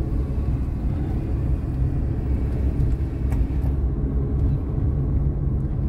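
Car engine and tyre noise heard from inside the moving car's cabin: a steady, low noise.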